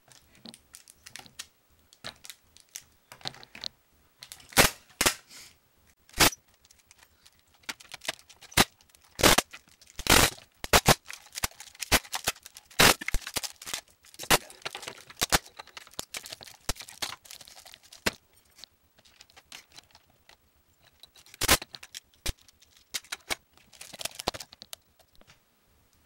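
Adhesive tape being pulled off the roll and wrapped around a broken plastic alarm clock: irregular ripping and crackling with sharp clicks and knocks of the plastic casing being handled.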